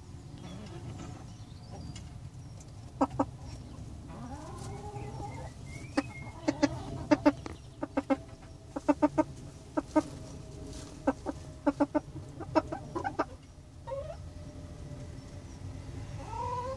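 Broody hen clucking on her nest: short, rapid clucks in runs, starting about three seconds in and stopping around the thirteenth second, with a few brief rising calls between.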